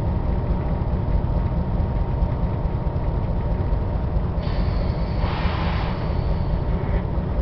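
Diesel locomotive engine running, heard from inside the cab as a steady low rumble. A hissing noise comes in for a couple of seconds about halfway through.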